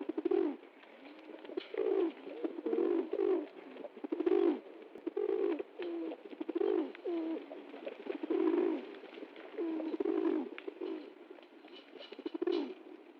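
A pigeon cooing over and over: low, warbling coos, one about every second.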